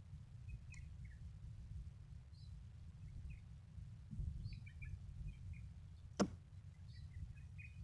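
Quiet outdoor ambience: a steady low rumble with faint scattered bird chirps, and one sharp click about six seconds in.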